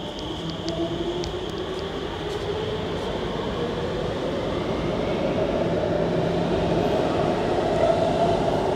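Alstom Movia R151 metro train accelerating away from the platform, its motors whining in a steadily rising pitch over a running hum, getting louder as the cars pass.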